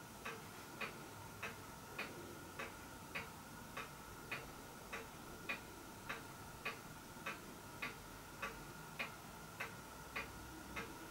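Regular mechanical ticking, evenly spaced at a little under two ticks a second, over a faint steady hum.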